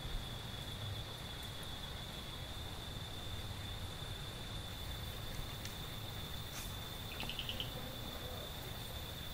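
An insect's continuous high-pitched trill, holding one steady pitch, over a low rumble. About seven seconds in there is a short, fast run of chirps.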